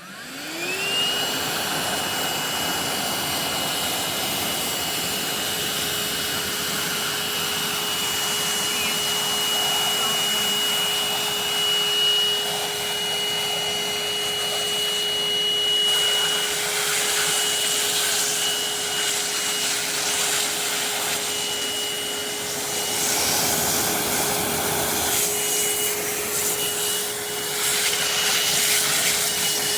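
Bissell Pet Hair Eraser lithium-ion cordless hand vacuum switched on, its motor spinning up in about a second, then running steadily with a high whine over a shifting rush of suction as it picks up pet hair.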